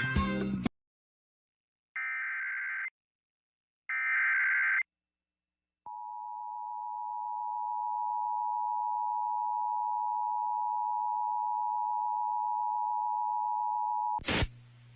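Emergency Alert System broadcast: two screeching data bursts of the SAME digital header, about a second apart, then the EAS two-tone attention signal held steady for about eight seconds before it cuts off near the end. Together they mark the start of a severe thunderstorm warning relay.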